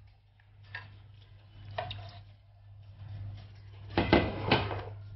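A bowl being tipped and knocked against a pressure cooker: a few light clinks, then two louder knocks about four seconds in as it is emptied into the cooker.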